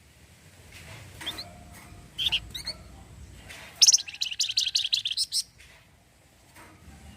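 Javan fulvetta (flamboyan) calling: a few short, high chirps, then a rapid chattering trill of about a second and a half starting about four seconds in. Bird keepers call this chatter 'cretet'.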